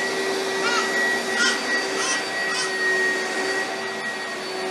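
A household appliance's electric motor running steadily: a whining hum over rushing air. Four short high chirps sound over it in the first three seconds.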